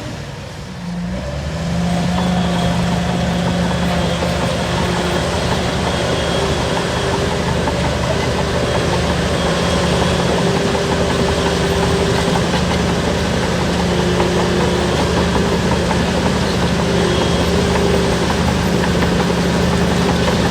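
Shantui DH17 bulldozer's diesel engine running with a steady hum. It is quieter for the first second or so, then builds up and holds steady.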